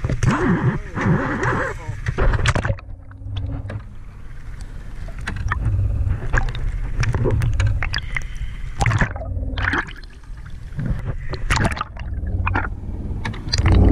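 Water splashing as a gaffed albacore tuna thrashes at the surface beside the boat. About three seconds in the sound turns muffled as the camera goes under water, leaving a steady low rumble with scattered clicks and knocks.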